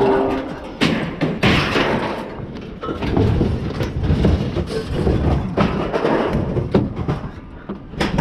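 Scrap metal being unloaded and moved at a scrapyard: repeated clanks and thumps of metal pieces knocking together and landing, over a low rumble.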